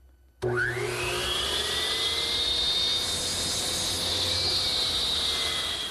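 Power miter saw switched on: its motor whines up to speed about half a second in, then runs steadily and starts winding down near the end, for 45-degree chamfer cuts on the end of a wooden mallet shaft.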